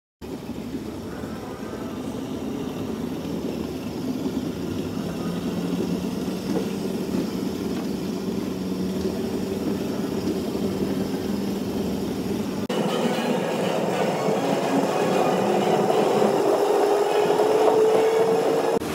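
Go-kart running with a steady hum, then, after a cut, its motor whine rising in pitch as the kart speeds up in the last few seconds.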